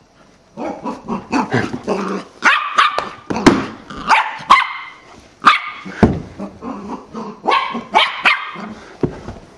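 Corgi puppy barking over and over, a steady string of short barks that stops shortly before the end.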